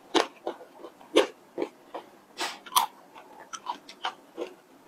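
Close-miked mouth sounds of chewing a spoonful of chocolate ice cream topped with chopped almonds: irregular wet clicks and smacks.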